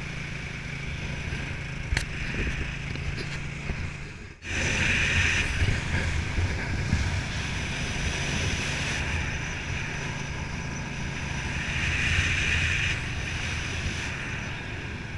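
A 1982 Honda CX500 V-twin motorcycle engine running on the road, with wind rushing over the microphone. The sound drops out briefly about four seconds in, then the wind rush is louder over the engine's low rumble.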